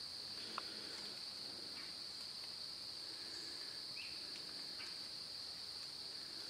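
Steady high-pitched insect chorus droning without a break, with a faint snap about half a second in and a brief chirp about four seconds in.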